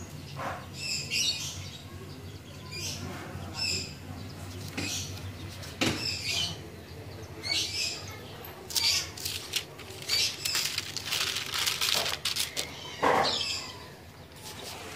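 A stiff stamp-album page and its plastic strips rustling as the page is handled and turned, most densely in the middle of the stretch. Short high chirps of small birds come every second or two.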